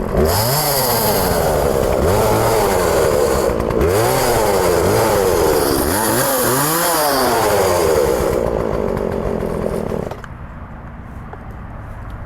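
Chainsaw revving up and down repeatedly as it cuts through wood, the engine pitch rising and falling with each push into the cut. About ten seconds in the loud cutting stops, leaving a much quieter low steady hum.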